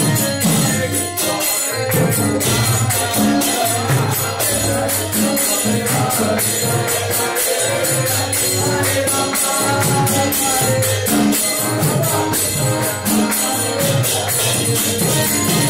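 Devotional kirtan music: an accordion playing steady chords, jingling percussion keeping a fast, even beat, and a drum pulsing underneath, with group chanting.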